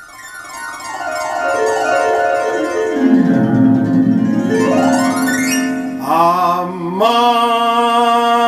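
Karaoke backing track intro: a harp glissando sweeps down and then back up. About six seconds in, a sustained chord comes in with a held note that wavers at first and then steadies.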